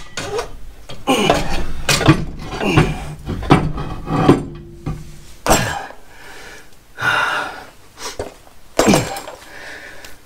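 Repeated metal clunks, knocks and scrapes as a heavy Tremec TKO 600 five-speed transmission is wrestled by hand under a car and let back down, failing to seat, along with a man's straining breaths.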